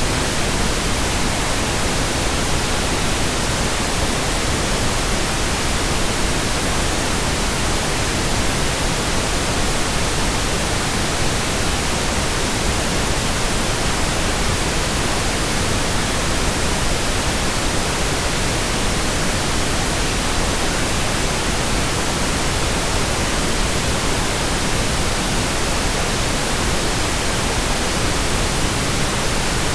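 Continuous electronically generated white noise: a steady, even hiss that does not change.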